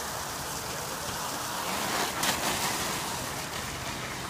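Steady hiss of water running over a long plastic slip-n-slide, swelling briefly about two seconds in.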